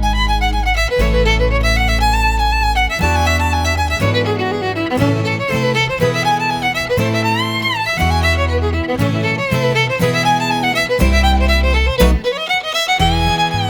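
Background music: a melody that slides and wavers over held bass notes changing every second or two.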